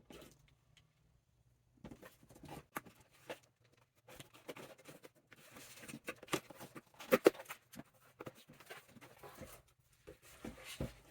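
Packaging being handled and opened during an unboxing: irregular rustling, crinkling and tearing with scattered sharp clicks and knocks, the loudest knock about seven seconds in.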